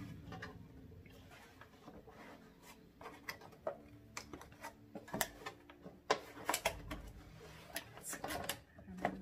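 Cardboard packaging scraping and rustling, with irregular sharp knocks and clicks, as the Giffin Grip's white plastic plate is worked loose from its fitted box by hand; the knocks come thickest in the second half.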